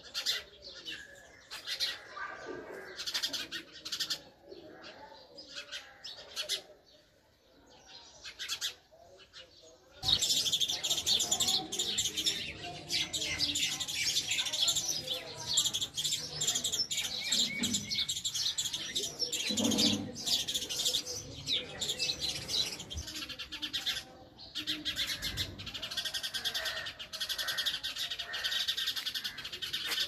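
House sparrows chirping: separate single chirps for about the first ten seconds, then a sudden switch to a louder, dense, unbroken chirping chatter that keeps going.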